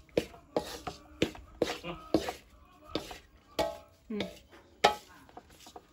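A wooden spatula scraping and knocking against a metal wok as fried rice is stirred and turned, in short repeated strokes about twice a second.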